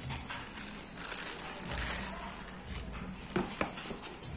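Clear plastic packaging bag crinkling and rustling as a folded wired headset is handled and pulled out of it, with two sharp clicks close together near the end.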